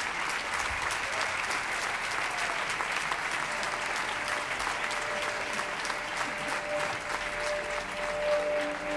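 Applause: a dense, even clapping hiss throughout. About halfway through, a held musical note comes in as background music starts.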